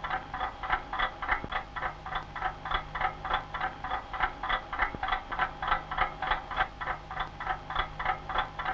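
Frog croaking in a fast, even rhythm, about four croaks a second, with a faint low hum underneath.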